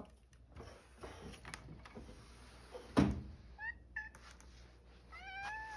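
Domestic cat meowing as it comes in: two short chirping meows about four seconds in, then a longer, slightly falling meow near the end. Before them a sliding glass door rumbles and there is a single thump about three seconds in.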